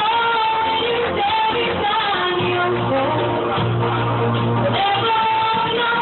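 A woman singing live into a microphone over amplified backing music, holding long notes.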